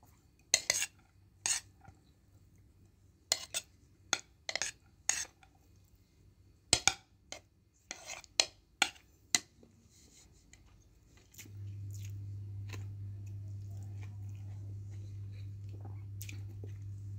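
Metal spoon clinking and scraping against a ceramic plate while eating: a series of sharp clinks over roughly the first ten seconds. About two thirds of the way through, a steady low hum starts suddenly and carries on.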